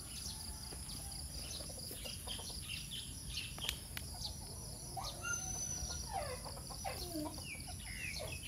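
Steady, high, pulsing drone of insects, with a string of short sweeping bird chirps in the second half.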